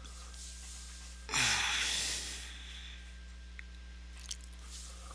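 A person breathing out heavily through the nose once, about a second in, lasting about a second, close to a headset microphone, over a steady low hum.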